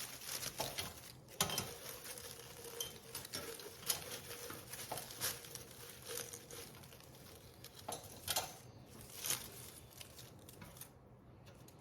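Faint rustling and scattered small taps and clicks of decorative craft pieces being handled and nudged into place in an arrangement.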